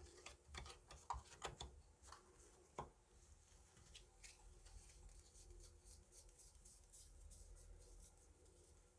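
Faint handling of hwatu playing cards: several sharp clicks and taps in the first three seconds, then a quick run of light ticking and rustling.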